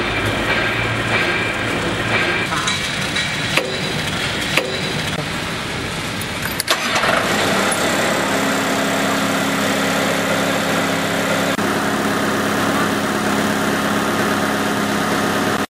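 A drilling rig's diesel engine starting about two-thirds of the way through, after a stretch of mixed machine noise with a few clicks and knocks. It then settles into a steady idle, with oil pressure coming up.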